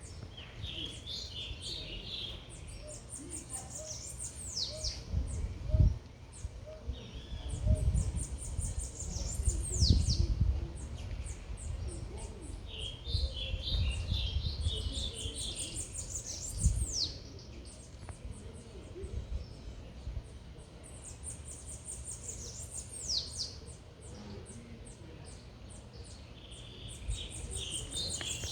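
A songbird repeats a high phrase of rapid ticking notes that ends in quick falling whistles, every several seconds, with lower warbling notes between. A steady low rumble runs underneath, with several louder low thumps.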